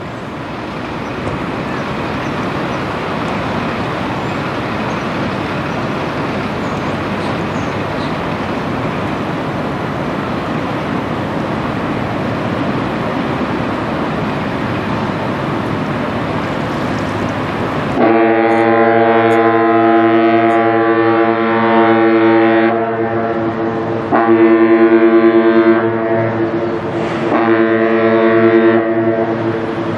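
A steady rushing noise, then the Great Lakes bulk carrier John J. Boland's horn sounds a salute: one long blast, then two shorter blasts.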